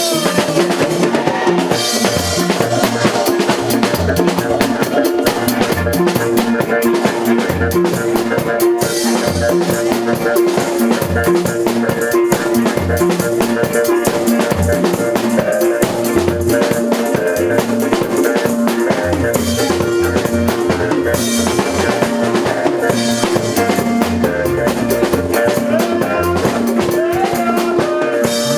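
Music with a drum kit playing a steady beat of bass drum and snare over sustained instrument tones.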